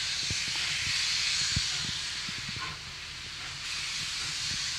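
Steam hissing from ex-Victorian Railways J class 2-8-0 steam locomotive J549: a steady hiss that starts suddenly and eases briefly a little over three seconds in before carrying on.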